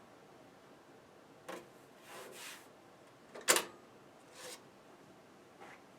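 A 5.25-inch floppy disk being handled at a Commodore 1541 disk drive: a few soft sliding swishes and one sharp click about three and a half seconds in.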